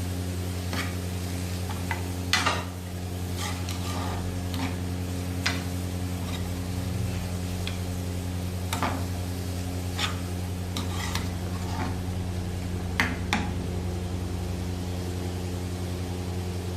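Spatula stirring diced capsicum, carrots and spring onion sautéing in butter in a pan, with scattered clicks and scrapes against the pan and light sizzling, over a steady low hum. The strongest knock comes about two seconds in.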